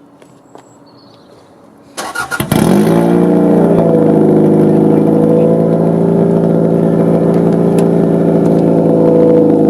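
Toyota Celica engine started with the exhaust open at the downpipe and no catalytic converter: a brief crank about two seconds in, then it catches, flares up in revs and settles into a loud, raw, unsilenced idle.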